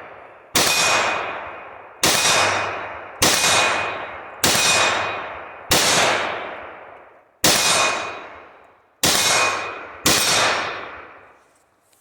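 Eight rifle shots, about one to one and a half seconds apart, each followed by a ringing clang as the bullet strikes a steel target.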